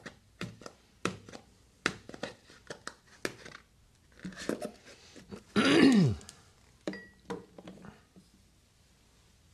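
Table salt poured from a canister ticking into a small glass bowl, then a cardboard baking soda box handled and tipped over another bowl, with scattered clicks and taps. About six seconds in comes the loudest sound, a brief low tone sliding down in pitch.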